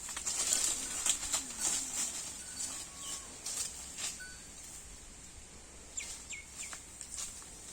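Holstein Friesian cow tearing and chewing grass: a run of crisp crunches, thickest in the first two seconds, with birds chirping in the background.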